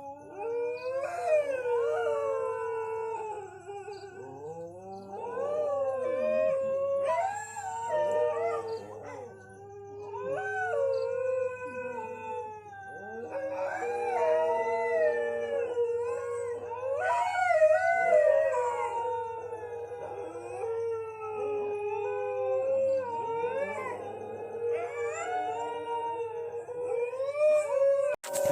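Several dogs howling in long, wavering howls that overlap, rising and falling in pitch with short breaks between them.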